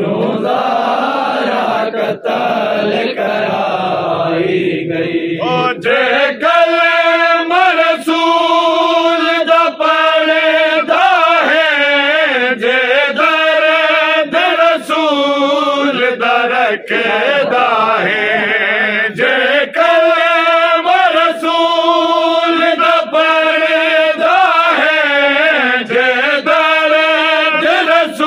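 Men reciting a Punjabi noha (Shia lament) in chant. It starts as a dense group sound, and from about six seconds in a lead male voice sings long, held, ornamented lines in repeating phrases.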